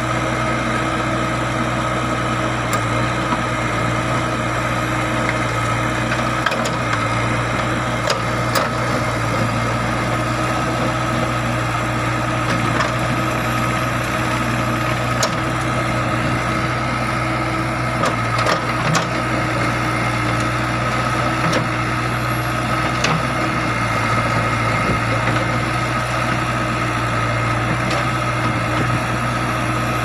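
JCB 3DX backhoe loader's diesel engine running steadily while the backhoe bucket scrapes and pushes red laterite stone blocks. A few sharp knocks of stone against stone and the bucket are scattered through.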